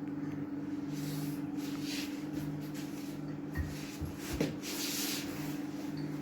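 Kitchen handling sounds of mug pizza being prepared: soft rubbing and scraping with a few low knocks a little past halfway, over a steady electrical hum.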